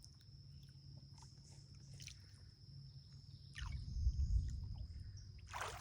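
Outdoor pond-side ambience: a steady high insect drone throughout, a low rumble on the microphone from a little past halfway, a few short chirps, and a brief rushing noise just before the end.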